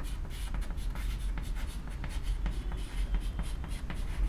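Someone writing by hand: a run of short, irregular scratching strokes, over a steady low hum.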